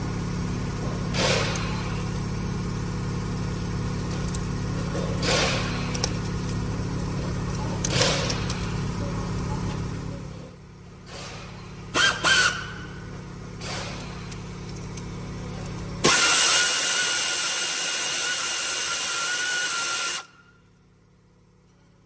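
Car engine running steadily for about ten seconds, then a few sharp clicks, then a loud hissing noise with a steady whine that cuts off suddenly after about four seconds.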